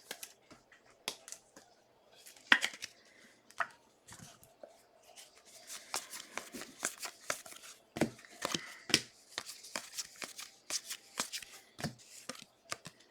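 Football trading cards handled and slid one past another by hand: a run of short soft clicks and swishes, busier in the second half.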